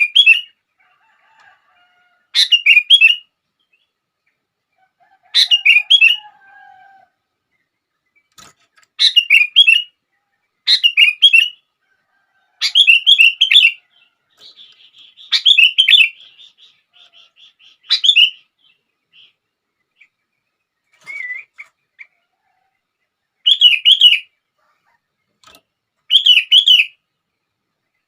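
Sooty-headed bulbul (kutilang) singing: short phrases of quick notes, each less than a second long, repeated every two to three seconds, with softer calls in between.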